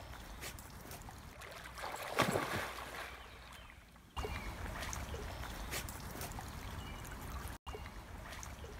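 Dog swimming and splashing through pond water, with a loud splash about two seconds in.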